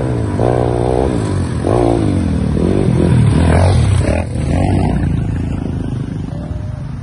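Motorcycle engine being ridden, revving up and down so its pitch rises and falls repeatedly, then running steadier for the last few seconds.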